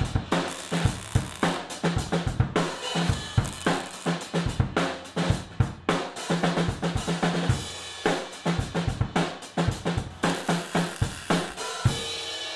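A drum kit being played: bass drum, snare and hi-hat with cymbal hits in a fast, steady stream of strokes. The playing stops near the end.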